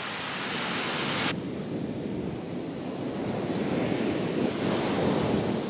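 A steady hiss that cuts off about a second in, then surf washing on a beach with wind buffeting the microphone in rough surges that swell toward the end.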